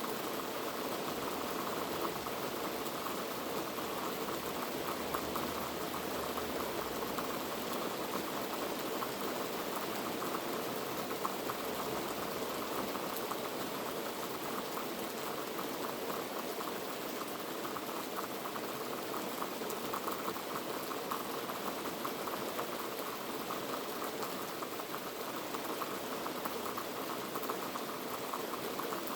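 Heavy rain falling steadily, a dense even patter of drops on a surface.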